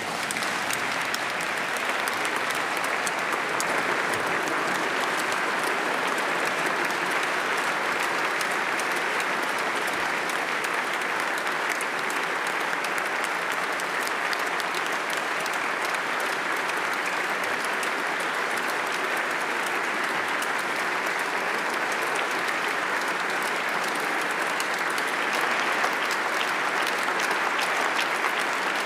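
A large audience applauding steadily without a break, the clapping swelling slightly near the end.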